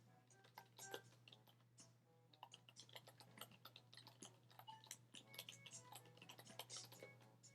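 Faint typing on a computer keyboard: rapid, irregular key clicks over a steady low electrical hum.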